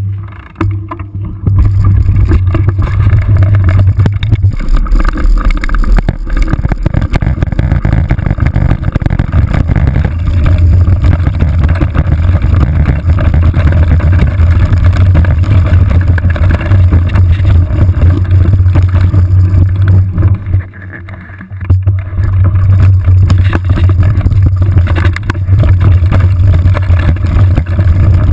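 Steady rumble and rattle of a mountain bike ridden over a rocky, gravelly trail, recorded by a GoPro HD2 mounted under the saddle. The camera shakes with every bump while the tyres crunch over loose stones, easing off briefly for about a second and a half near two-thirds of the way through.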